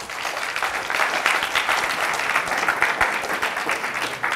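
Audience applauding, many hands clapping in a steady patter.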